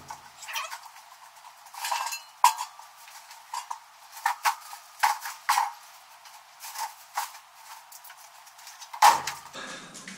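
Scattered metallic clanks, knocks and rattles of a metal cart and garage clutter being shifted by hand, with a louder clatter about nine seconds in.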